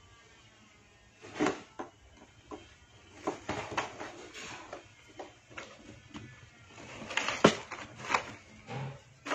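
Cat scrabbling and shifting about inside a cardboard box: irregular scratches, rustles and knocks on the cardboard, the loudest about seven and a half seconds in.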